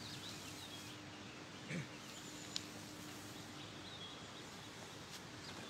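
Faint open-air garden ambience with birds chirping briefly now and then, a faint steady hum that fades out a little past halfway, and one small click.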